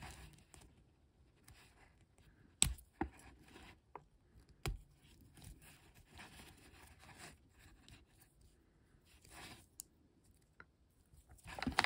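Small plastic Transformers BotBots toy handled and unfolded by hand: faint rubbing and scraping of plastic against fingers, with a few sharp plastic clicks, mostly between about two and a half and five seconds in, as its arms and legs are worked open.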